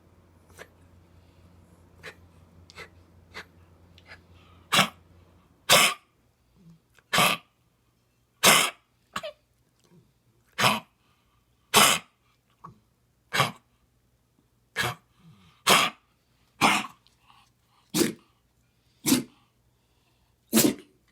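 Dog with heartworm disease coughing over and over: short coughs about one a second, beginning faint and growing loud a few seconds in. The coughing is a sign of the heartworm infection.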